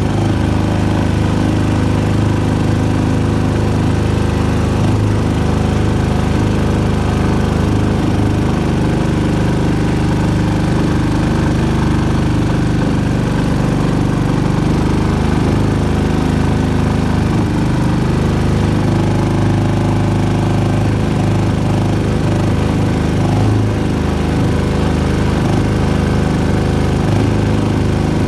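A 6.5 hp Predator single-cylinder four-stroke engine running steadily under load, driving a small boat across shallow floodwater.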